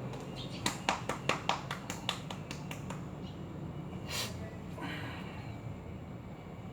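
A quick run of about ten sharp slaps or taps of hands on the body during a massage, roughly four a second, then a short hissing breath.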